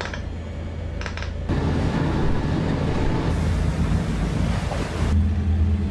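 Wind buffeting the microphone and sea rushing past aboard a warship under way, over a steady low hum of the ship's engines. The sound changes abruptly about a second and a half in and again near the end.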